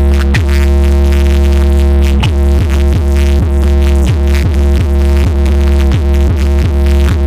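Electronic music played very loud through a high-power sound system with a 3000 W RMS amplifier. A deep bass holds constant, and falling pitch sweeps repeat over it, coming about three times a second from about two seconds in.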